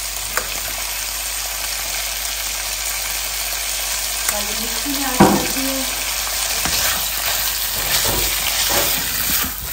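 Diced chicken and green onions sizzling steadily in butter in a nonstick pan, with a sharp knock about five seconds in. Toward the end a silicone spatula stirs and scrapes through the pieces in short strokes.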